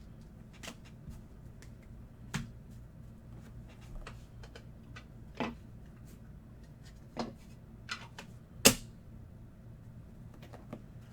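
Trading cards and packs being handled on a table: scattered sharp taps and clicks as cards are flicked through and set down, the loudest about three-quarters of the way through.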